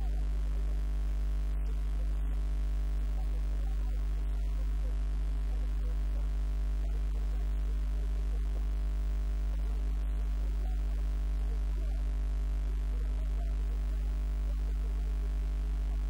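Steady low electrical mains hum with a row of higher overtones, unchanging throughout.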